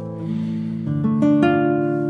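Background music of plucked acoustic guitar notes, each ringing on and fading, with several new notes picked in quick succession about a second in.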